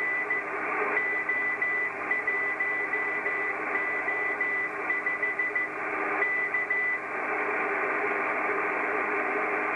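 Morse code signal heard through a Kenwood TS-680S transceiver's speaker on the 6-metre band: a single high beat tone keyed on and off in dots and dashes over steady band hiss. The keying stops about seven seconds in, leaving only the receiver hiss.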